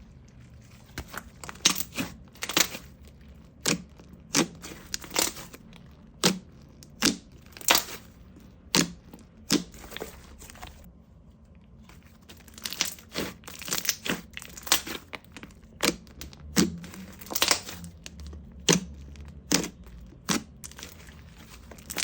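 Homemade slime being squeezed and pressed, giving a run of sharp popping clicks, about one or two a second, with a short pause about halfway through.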